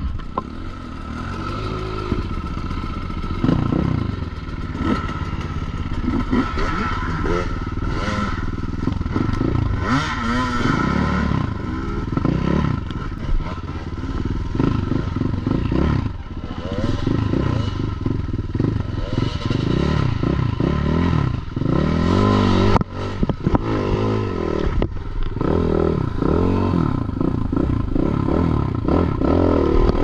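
Avantis 250 enduro motorcycle engine revving up and down over and over as the bike is ridden through mud and rough forest ground, heard close up from the handlebars, with some clatter from the bike.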